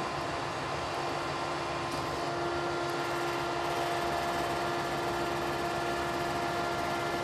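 Steady machine-like hum with a constant whine over a noisy rush, unbroken and without speech.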